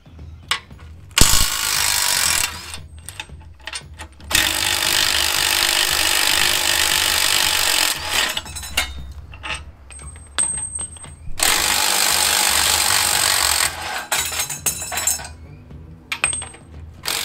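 Cordless impact wrench running in repeated bursts, three of them lasting a few seconds, as it undoes the leaf-spring and hanger bolts on a truck chassis.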